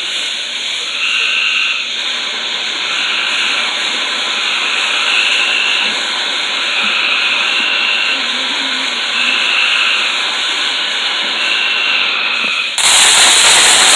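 Firework fountain spraying sparks with a steady hiss, a faint high chirp repeating about every two seconds behind it. Near the end a much louder, harsher rush of sparks comes in for about a second.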